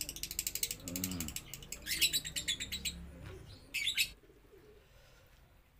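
Small birds chirping rapidly, with a dove giving a single coo about a second in. It grows quieter after about four seconds.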